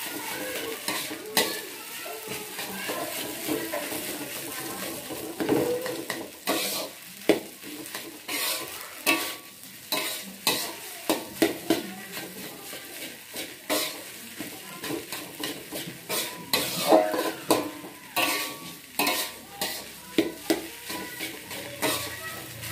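Nasi goreng being stir-fried in a metal wok: a metal spatula scrapes and clacks against the wok again and again, irregularly, over a steady sizzle.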